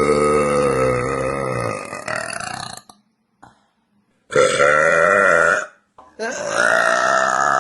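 A woman burping loudly three times in a row. The first burp is long, about three seconds, with its pitch sinking. The second, about a second and a half, follows after a pause, and the third starts near the end and carries on.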